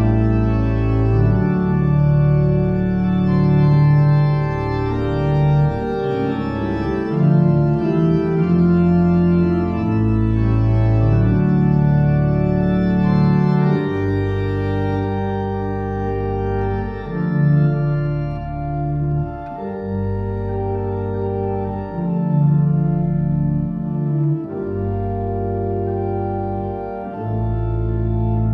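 Pipe organ playing slow, sustained chords over deep bass notes, the harmony changing every couple of seconds.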